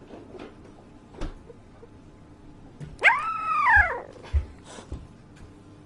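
A dog, asleep, giving one drawn-out whine about three seconds in, its pitch rising and then falling, followed by a couple of soft low thumps.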